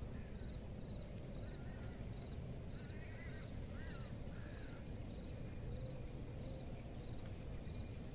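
Rural ambience: crickets chirping in a regular pulse, with a few short rising-and-falling animal or bird calls in the middle, over a steady low rumble.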